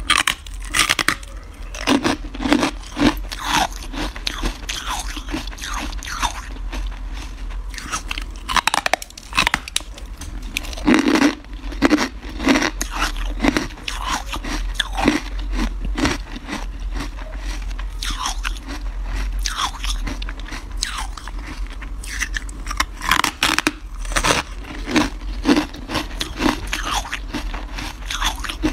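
Close-miked biting and chewing of carbonated ice: repeated crisp crunches as chunks are bitten off and crushed between the teeth, coming in clusters of several crunches every second or two.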